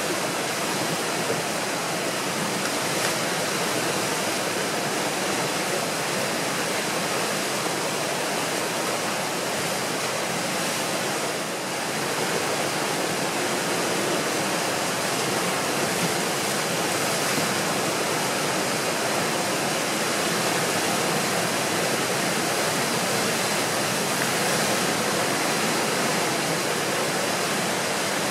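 Whitewater of a tidal rapid rushing steadily at close range, a continuous noise of breaking, churning water from a standing wave during a very large tidal flow.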